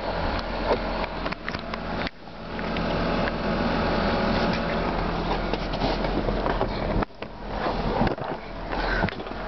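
The 2003 Mitsubishi Galant's 2.4-litre four-cylinder engine idling steadily, heard from inside the cabin, with a few sharp clicks and knocks in the first couple of seconds.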